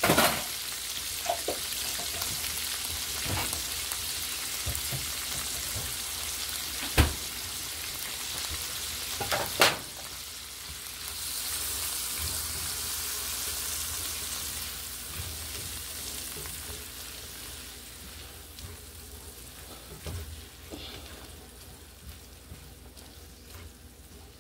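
Diced bell pepper, onion and minced garlic sizzling in bacon grease in a skillet, stirred with a spatula that knocks sharply against the pan a few times. The sizzle fades slowly over the second half as the vegetables cook down.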